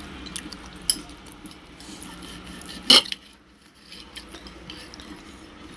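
Knife and fork clinking and scraping against a ceramic plate while steak is cut, with scattered light taps and one sharp clink about three seconds in.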